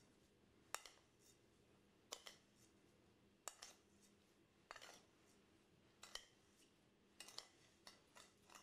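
Faint clinks of a metal spoon against a ceramic bowl, about one every second or so, as a dry salt-and-sugar cure is scooped and spread.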